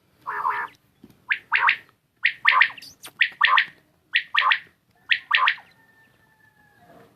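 Caged quail calling: a quick three-note phrase repeated about five times, roughly once a second.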